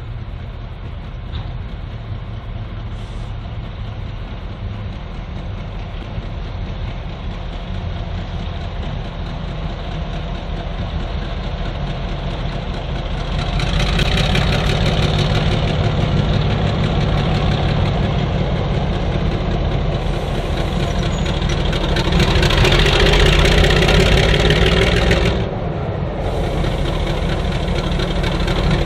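Diesel locomotive's engine running as it hauls a train, steady at first and growing louder about halfway through. It is loudest a few seconds before the end, then drops off suddenly.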